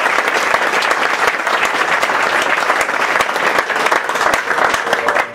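Theatre audience applauding, many hands clapping steadily.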